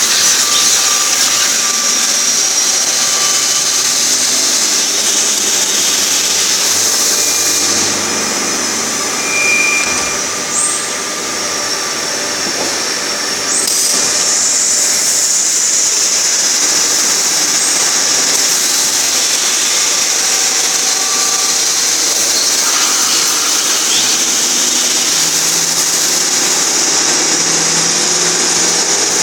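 Machine-shop noise from running CNC machines: a loud, steady high hiss and whine. It eases off about eight seconds in, with a brief high beep, and picks up again about six seconds later.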